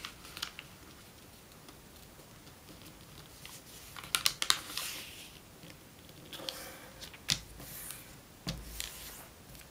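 A sheet of origami paper rustling and crackling as it is folded along a diagonal and the crease is pressed flat by hand, with short crisp crackles from about the middle onward.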